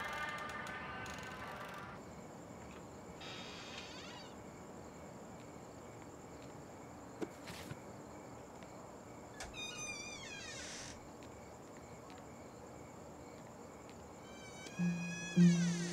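Night ambience of crickets trilling steadily in a high, thin tone, with a few short series of falling chirps about halfway through and again near the end.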